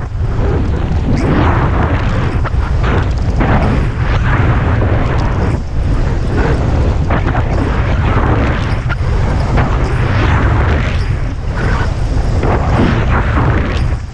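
Heavy wind buffeting a skier's point-of-view camera microphone during a fast downhill run, a constant low rumble. Over it the skis hiss through the snow, surging and fading about once a second with each turn.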